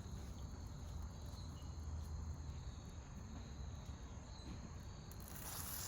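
Quiet outdoor ambience: insects trilling steadily at a high pitch over a low steady rumble. A broad hiss sets in near the end.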